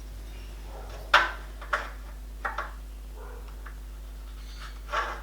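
A few sharp knocks and clinks as aluminium rack sections and tools are handled on the bench, the loudest about a second in and a last one near the end.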